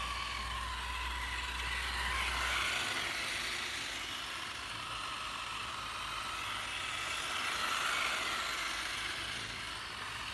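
A bundle of sparklers burning with a steady crackling hiss, with a faint wavering whine over it.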